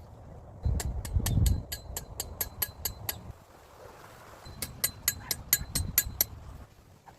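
Two runs of rapid, evenly spaced mechanical clicks, about five a second, each lasting about two seconds, over a low rumble of wind.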